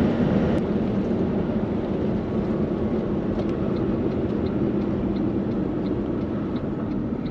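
Steady road and engine noise heard inside the cabin of a car driving along a sealed road: a continuous low drone of tyres and engine.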